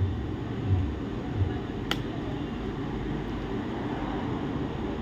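Steady low room hum with a couple of soft knocks and one sharp click about two seconds in, from hands and tools working on an opened laptop while cables and screws are being removed.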